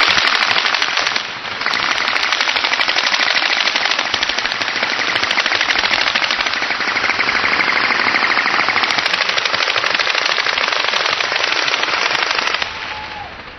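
Sustained bursts of automatic gunfire, a rapid continuous rattle that starts suddenly, dips briefly about a second in, and cuts off near the end.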